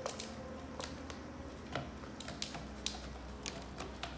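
Irregular light clicks and taps, about one or two a second, of a spoon stirring a drink in a plastic cup.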